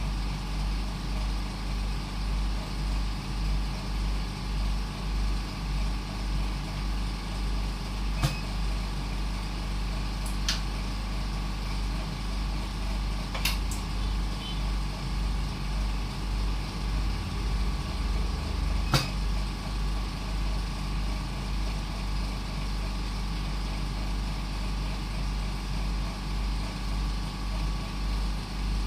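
An engine running steadily, a low rumble that swells and fades in an even rhythm, with a few short sharp clicks in the middle.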